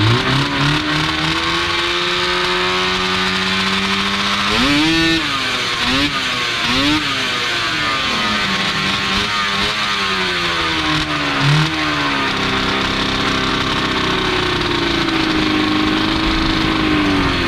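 Air-cooled engine of a vintage race snowmobile, propped up on stands, running steadily and being blipped: a few quick revs about five to seven seconds in and another near twelve seconds, then it settles back.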